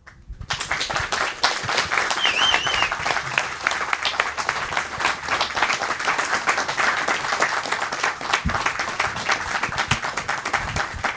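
Small audience applauding in a room at the end of a talk: dense hand clapping that starts about half a second in and thins out near the end. A brief wavering high tone sounds over it about two seconds in.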